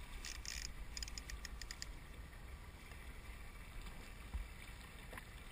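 Faint water lapping around a small boat, with a steady low rumble of wind on the microphone. There is a brief run of soft clicks about a second in and a single sharp click near the end.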